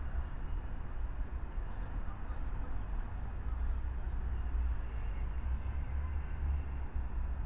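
City street ambience: a steady hum of road traffic with a heavy low rumble underneath.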